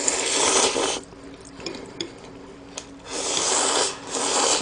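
A person slurping Neoguri instant ramen noodles with close, wet sucking: three long slurps, the first right at the start and two more about three seconds in.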